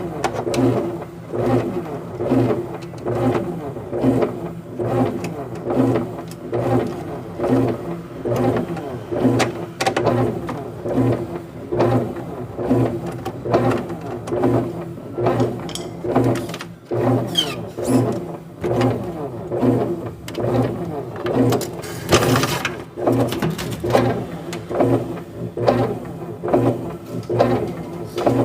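Brastemp washing machine's motor and drive running the wash agitation with an empty tub: a steady hum that swells and eases about once a second as the agitator works back and forth. Near the end, a brief harsh burst of noise cuts through.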